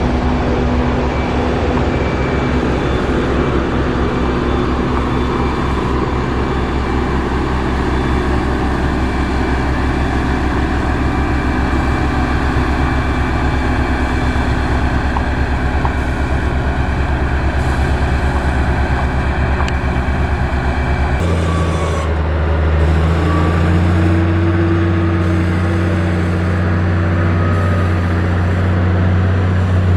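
Diesel engine of heavy road-construction machinery running steadily. About two-thirds of the way through, the sound cuts abruptly to a different, deeper engine note.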